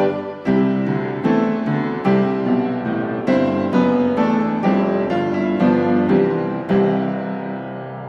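Background piano music: a melody of struck notes, about two a second, ending in a chord that rings out and fades over the last second.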